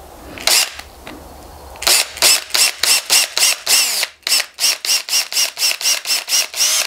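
Cordless drill with a small bit drilling a little hole through a rubber cable grommet. The motor is pulsed on the trigger: one brief whirr about half a second in, then about twenty quick bursts, three to four a second, each winding up and down in pitch.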